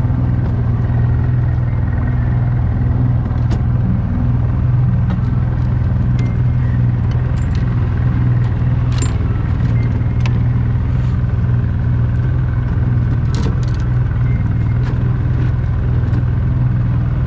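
Outboard motor on a small fishing skiff running steadily under way, a constant low hum, with a few scattered light clicks and knocks.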